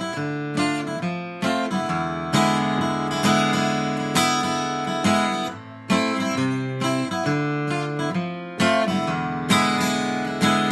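Acoustic guitar strumming chords in a steady rhythm, the chord changing every second or two.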